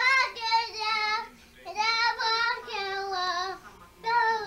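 A young girl singing with no accompaniment, in a high voice with a wavering pitch. She sings three short phrases with brief breaks between them.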